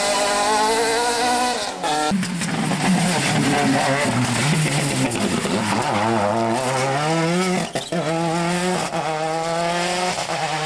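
Rally car engines driven hard past the spectators, one car after another. Each engine note climbs as the car accelerates and drops at gear changes and lift-off, with abrupt jumps where one car's run cuts to the next.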